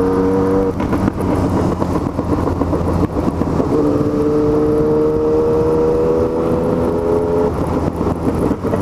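Yamaha MT-09 three-cylinder engine running while riding on a wet road. Its note holds steady at first, gives way to wind and road noise for a few seconds, then comes back and climbs slowly from about four seconds in to about seven and a half as the bike gathers speed.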